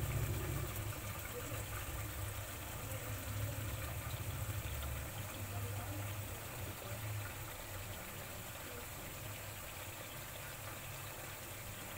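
Reddish liquid bubbling and sizzling in hot oil in a steel kadhai, a steady hiss over a low rumble that eases after about seven seconds.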